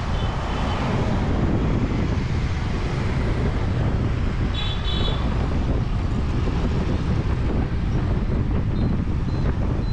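Steady road and wind noise of riding in a moving car, with wind buffeting the microphone and passing traffic. Two short high beeps sound, about five seconds in and near the end.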